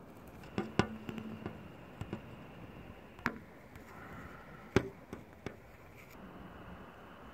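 A scattering of sharp knocks and taps at irregular intervals, the two loudest about a second in and just before five seconds, over a steady wind rush.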